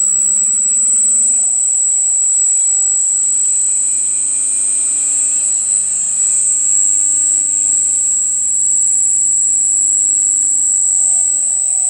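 Three-phase electric motor with a V-belt pulley, driven by a Siemens Sinamics G110 frequency inverter. It speeds up gradually, its whine rising in pitch over the first few seconds, then runs steadily at 50 Hz under a high, steady switching whine from the drive. Its pitch starts to fall again near the end.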